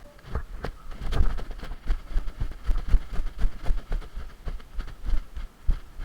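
Dull thumps and knocks in an uneven rhythm of about three to four a second, as of footsteps and gear jolting a body-worn camera while the player moves.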